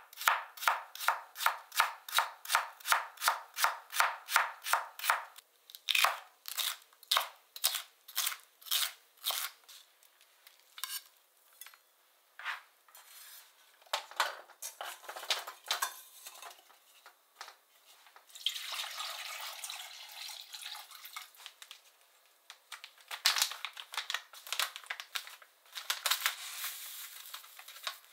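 Kitchen knife chopping carrot on a cutting board in quick even strokes, about three a second for some five seconds, then slower spaced cuts. After that come scattered clinks and scrapes of a stainless steel bowl and saucepan as the cut vegetables are tipped into the pot.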